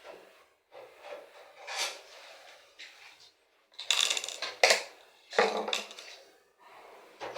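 Irregular scraping, rubbing and knocking of parts and tools inside a washing machine as its drain pumps are being taken out, with a cluster of louder knocks about four to five seconds in.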